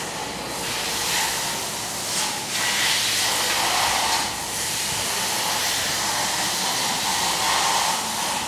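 Steady hissing noise with a few short, louder surges of higher hiss about one, two and three to four seconds in.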